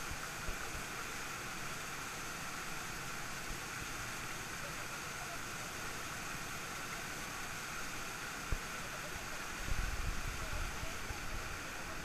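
A small mountain stream cascade rushes steadily down a smooth rock chute. There is a sharp knock about eight and a half seconds in, and a low rumbling near the end.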